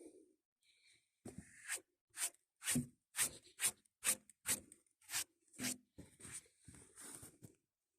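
A run of short rubbing or scraping strokes, about two a second, beginning about a second in.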